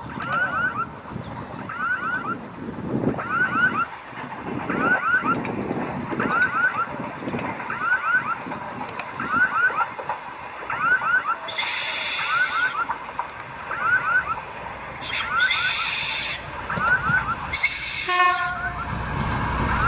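Train horn sounding in three loud blasts in the second half, the last one falling in pitch, over a short chirp that repeats regularly about once every second and a quarter.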